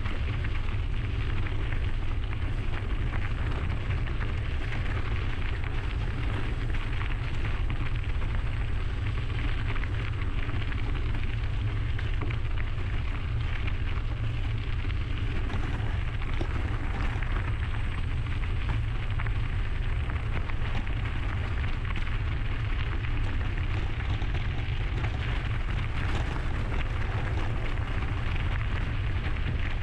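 Steady wind rumble on a GoPro's microphone, with the rough hiss of mountain-bike tyres rolling along a trail.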